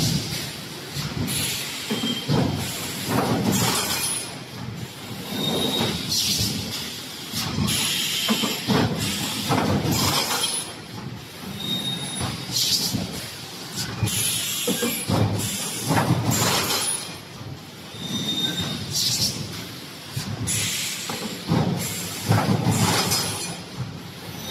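Air-driven 3D panel wire-mesh welding machine running its cycle: repeated clattering and hissing bursts every second or two, with short high metallic squeaks.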